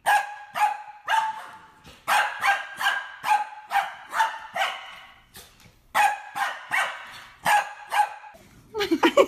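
A small white fluffy dog barking in quick, high-pitched yaps, in runs of several barks with short pauses between, about sixteen barks in all.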